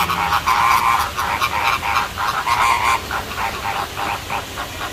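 A flock of birds calling in a dense chorus of short, overlapping calls, a little quieter after about three seconds.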